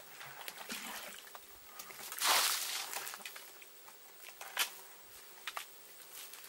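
Shallow water trickling along a muddy ditch, with a brief louder rush of noise a little over two seconds in and a few sharp clicks in the second half.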